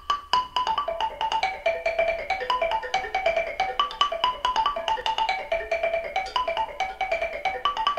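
Music: a quick, repeating melody of struck, ringing notes on a xylophone-type mallet instrument.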